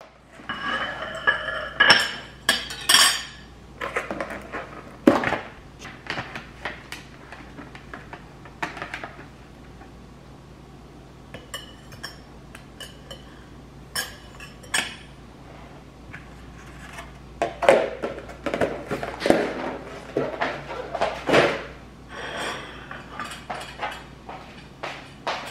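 Dishes and cutlery being handled: a string of separate clinks and knocks in clusters, some ringing briefly.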